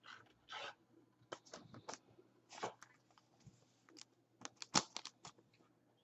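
Faint rustling and clicking of a trading card being slid into a clear plastic sleeve, with a sharper click near the end.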